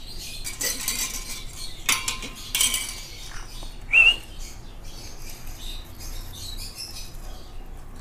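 Light clinks and scrapes of a feeding syringe against a cup of hand-feeding formula, with one short high squeak about four seconds in.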